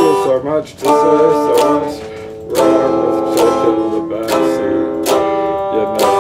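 Stratocaster-style electric guitar strumming chords, each strum ringing on into the next, with a short lull about two seconds in.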